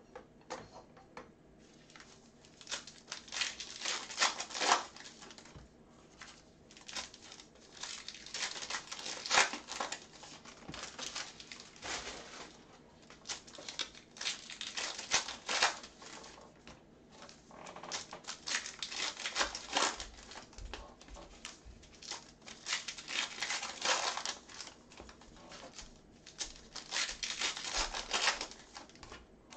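Foil wrappers of Panini Phoenix football card packs crinkling and tearing as they are ripped open by hand, in repeated bursts every second or two.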